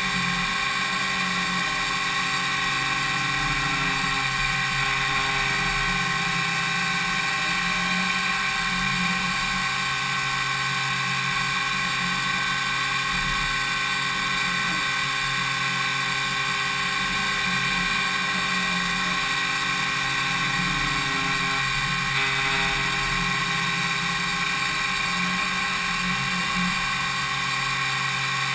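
5-axis CNC machining centre (DMU 70V) milling impeller blades: a steady, high-pitched whine of the spindle and cutter made of many fixed tones, which does not let up.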